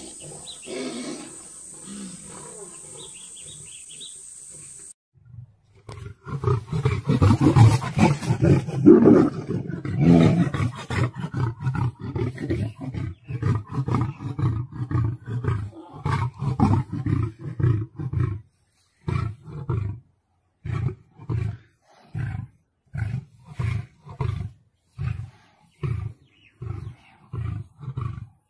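A lion roaring, starting about six seconds in: a long, loud run of deep roars, then a series of short grunts, a little over one a second, that carries on to the end.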